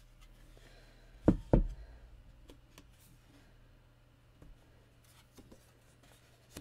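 Two dull knocks a third of a second apart as a handheld paper punch is set down on the work board, followed by faint clicks and rustles of paper being handled.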